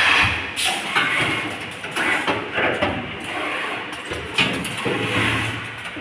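Automatic lug crimping and ferrule marking machine running, its stations working with irregular sharp clicks and knocks over a steady hiss.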